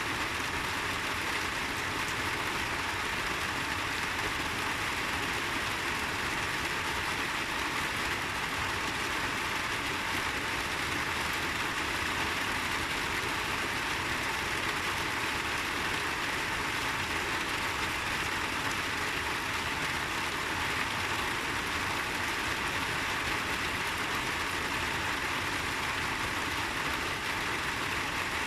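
Steady rain of a summer shower falling, an even hiss with no single drops or other events standing out.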